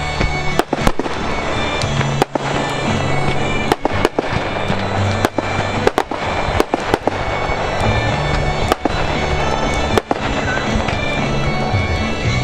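Fireworks going off overhead, with repeated sharp bangs and crackle, over music that plays on throughout.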